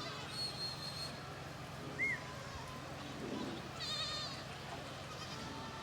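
Farm animals bleating, with short high bird chirps and warbles, over a steady rush of river water.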